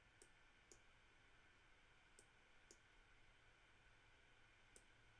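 Near silence broken by about five faint, irregularly spaced clicks of a computer mouse.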